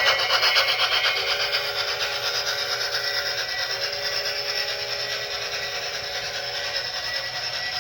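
Sound decoder of a Bachmann On30 4-6-0 model steam locomotive playing a fast, even steam chuff through its small speaker, fading slowly. Over the chuff comes a chime whistle in two long blasts with a short break between them.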